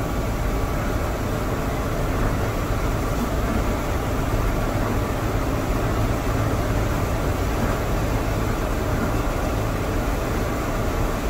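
JCB Fastrac tractor's diesel engine running steadily, heard from inside the cab, with an even hiss over the low engine drone.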